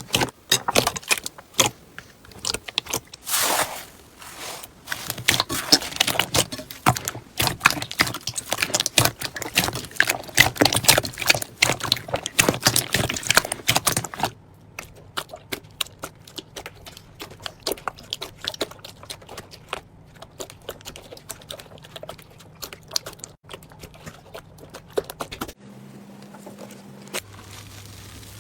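Slime being squeezed and pressed by hand, a dense run of crackling clicks and pops that thins to scattered clicks about halfway through.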